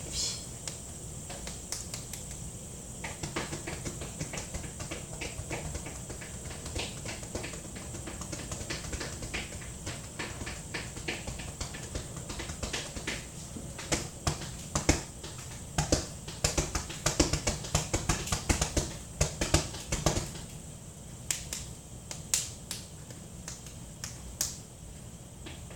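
Sharp finger clicks made by hand, not quite snaps, repeated irregularly and coming in quicker flurries in the middle stretch.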